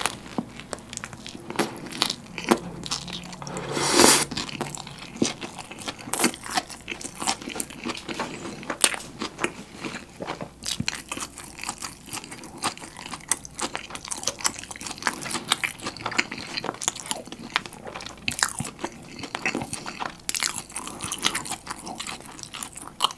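Close-miked eating: bites into a soft-bun chicken burger filled with yangnyeom fried chicken, shredded cabbage and green onions, followed by steady wet chewing with many small crunchy clicks. The loudest crunch comes about four seconds in, and another bite comes near the end.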